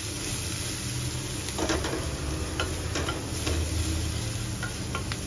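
Chopped onion, garlic and green chilli sizzling in hot oil in a stainless steel kadai, being sautéed until golden brown. A wooden spatula stirs them, scraping and tapping the pan now and then.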